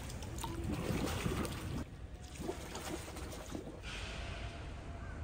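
Hot-spring water pouring and trickling over a rock into a shallow tiled basin, cut off abruptly about two seconds in; then quieter outdoor background noise.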